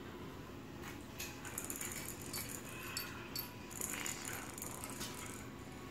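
Small cat toys rattling, jingling and clicking against a tile floor as a kitten bats at a wand toy and balls, in scattered light bursts starting about a second in.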